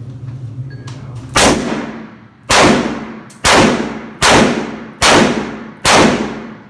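.357 Magnum handgun fired six times in quick succession, a little under a second between shots, each shot followed by a ringing tail.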